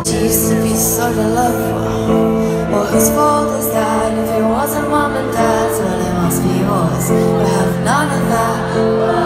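A live band with a female lead singer performing, with sustained chords under her gliding vocal line. The sound is loud and unbroken, as picked up from among the festival crowd.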